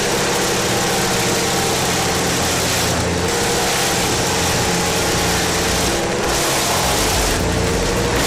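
Vermeer BC1000XL brush chipper's diesel engine running at a steady speed, with a constant hiss over the engine note.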